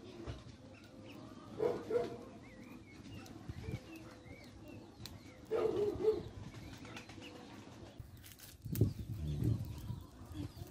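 A dove cooing in two short phrases, about two seconds in and again about halfway through, with faint small-bird chirps between them. A low rumble follows near the end.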